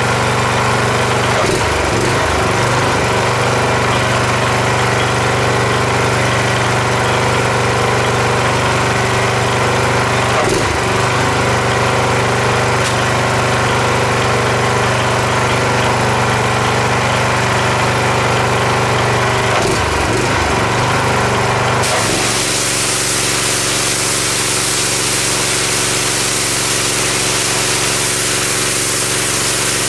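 Home-built pressure washer running steadily under load, its small engine drone mixed with the hiss of the spray. The sound changes abruptly about two-thirds of the way through.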